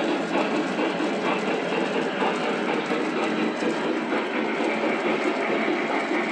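Several model trains running at once on a multi-level layout: a steady, dense rattle and hum of locomotives and cars rolling over the track.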